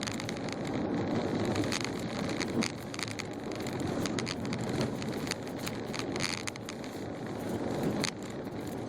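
Car driving through deep, unplowed snow: a steady rumble of tyres and engine, with a run of short crackling clicks from the snow under the tyres.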